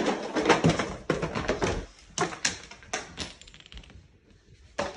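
A row of children's board books toppling one into the next onto a tile floor, a fast run of slaps and clatter for about two seconds. It is followed by a few separate light clicks and knocks, as in a chain reaction of small objects tipping over.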